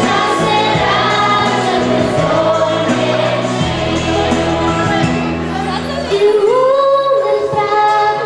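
A choir of young girls singing a Christmas song together over steady instrumental accompaniment; about six seconds in, a louder sung line comes in.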